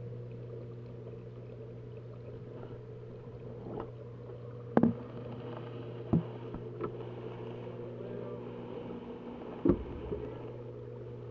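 Steady low mechanical hum of aquarium equipment, with a few sharp knocks; the first comes about five seconds in and the loudest near the end.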